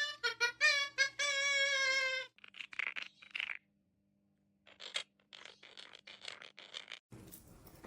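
A quick melodic run of bright, high pitched notes that stops about two seconds in, followed by faint scratching and clicking.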